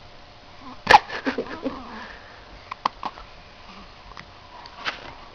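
A young girl hiccuping: one sharp, loud hiccup about a second in, then fainter ones near three and five seconds.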